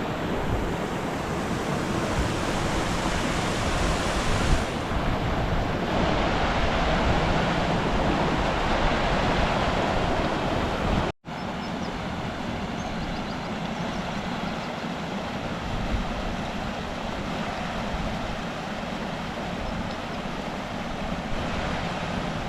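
Waterfalls and river rushing, a loud, steady roar of falling water. It cuts out for an instant about halfway through, then carries on.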